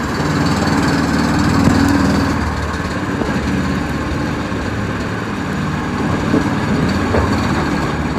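A motor running steadily and loudly after building up over about a second at the start.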